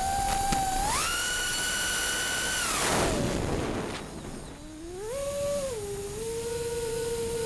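The four brushless motors of a 5-inch 6S FPV quadcopter (T-motor Blackbird V2, 2800 kV) whining with the throttle. The pitch jumps up about a second in and holds, drops sharply around three seconds in as the throttle is cut, then climbs again and settles at a lower steady pitch.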